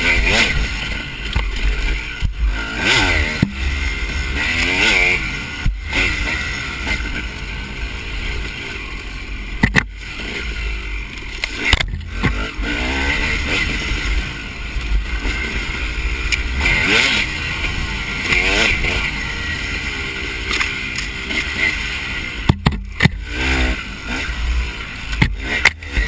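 Dirt bike engine revving up and down over and over as it is ridden hard along a tight trail, the pitch rising and falling every second or two. The sound cuts out for an instant several times.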